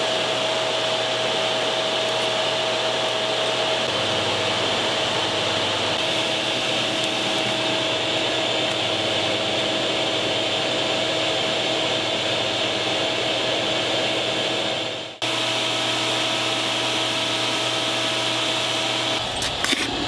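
Electric air blower running steadily, a rushing noise with a steady motor whine in it, as used to force air into a backyard charcoal furnace for melting aluminium. It drops out for an instant about fifteen seconds in and comes straight back.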